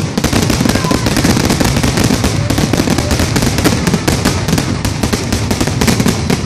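Fireworks finale barrage: a dense, rapid string of aerial shell bursts and crackling reports, many a second, thinning out at the very end.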